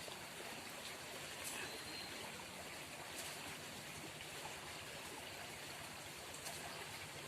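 River water flowing steadily, a faint even rush, with a few light clicks over it.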